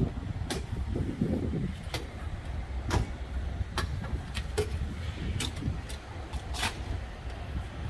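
A Scout's fabric soft top being handled and rolled up by hand: scattered sharp clicks and knocks, about nine, one a little longer near the end, over a steady low rumble.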